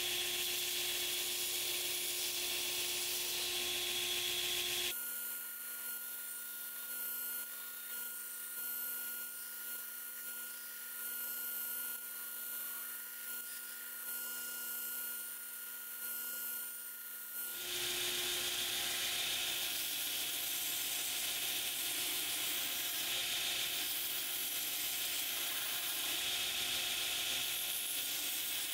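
Belt grinder running steadily, its abrasive belt sanding a hickory hatchet handle down to shape. The sound changes abruptly about five seconds in and again some twelve seconds later.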